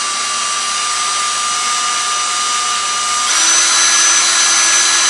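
Cordless drill running steadily, spinning a metal post screw while a diamond file is rubbed back and forth against its tip to grind it to a point. The whine changes pitch and gets louder about three seconds in.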